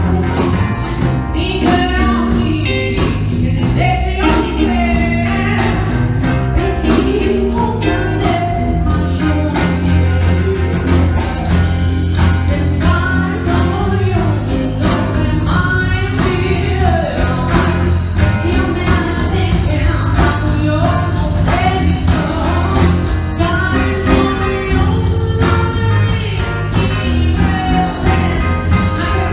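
Music: a song with a sung vocal line over steady bass and drums.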